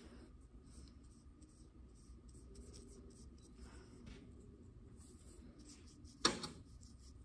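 Paintbrush strokes of acrylic paint on paper, a faint, soft scratching as the brush is dabbed and dragged. A single sharp knock about six seconds in.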